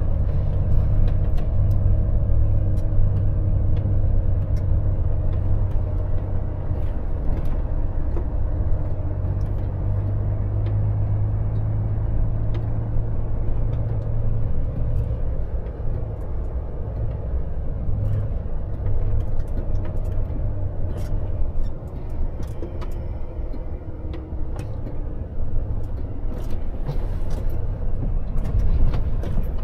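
Volvo FH truck's diesel engine running with a low, steady rumble, its note strongest in the first half and easing off after about fourteen seconds. Scattered clicks and light knocks come in over the second half.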